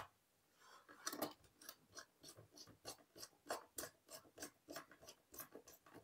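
Faint, quick ticks and scrapes of a small screwdriver turning the screw of a switch's screw terminal to clamp a wire, about three a second.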